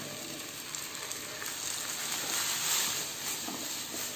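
Cauliflower florets frying in hot oil with onions and green chillies in a nonstick pan: a steady sizzle that swells a little about halfway through.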